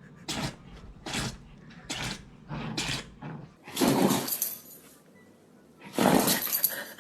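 A dog sneezing over and over: a quick run of short, sharp sneezes a little more than one a second, then two longer, louder sneezes about four and six seconds in.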